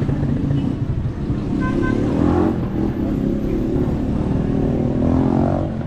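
Street traffic: motor vehicle engines running close by, with an engine rising in pitch as a vehicle speeds up about two seconds in and again near the end.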